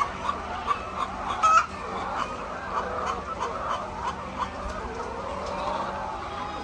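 A flock of chickens clucking, with many short calls overlapping and one louder call about a second and a half in.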